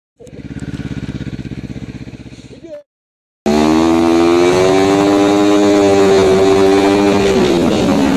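Yamaha Phazer snowmobile engine, in two cut-together stretches: first a pulsing, lower-revving run that fades out, then, after a gap of silence, the engine running loud at steady high revs, its pitch easing down near the end.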